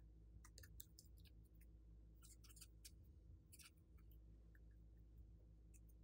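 Very faint, irregular small clicks of a paintbrush stirring paint, glitter and beads into slime in a glass bowl, over a low steady hum.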